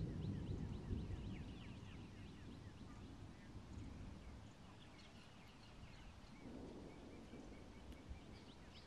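Birds chirping: many short, high, repeated calls. Under them is a low rumble that fades over the first few seconds.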